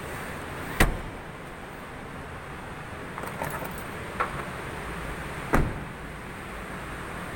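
Handling a 2019 Proton Saga's rear seat and door: a sharp knock about a second in as the folding rear seatback is pushed up and latches, a few light clicks and rattles, then a second sharp knock about five and a half seconds in as the rear door is shut.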